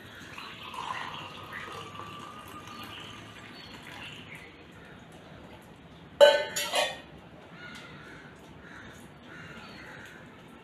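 Masala chai poured from a steel mug into a ceramic cup: a faint trickle of liquid filling the cup over the first few seconds. About six seconds in comes a short, loud, harsh call, twice in quick succession.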